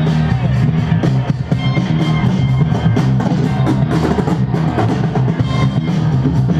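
Loud music with a steady drum-kit beat and heavy bass.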